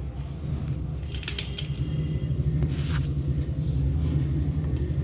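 A small knife scraping and stripping the fibrous skin from a drumstick (moringa pod), with a few short scrapes about a second and a half in and again near three seconds, over a steady low background rumble.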